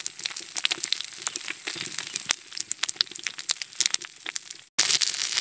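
Banana-leaf parcels of fish frying in mustard oil on a hot iron griddle: a steady sizzle with dense, irregular crackling and spitting. It cuts out for a moment near the end, then comes back louder.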